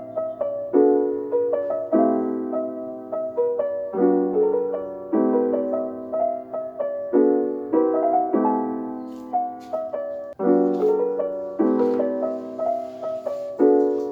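Soft piano background music: gentle chords struck in a slow, steady pattern, each left to ring and fade.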